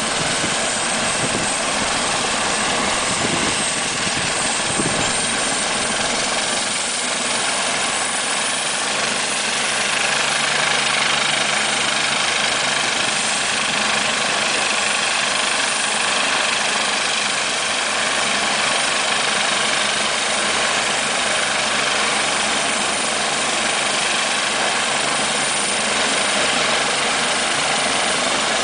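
Doctor helicopter running on the ground with its main rotor turning ahead of take-off: a steady turbine whine and rotor noise. Low rotor beating fades after the first several seconds, and a steady low hum comes in about ten seconds in.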